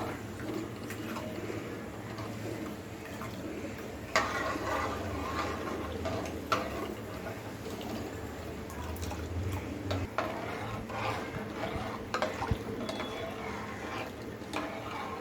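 A metal spoon stirring liquid curry in a pot, with a few sharp clinks of the spoon against the pot, the loudest about four seconds in.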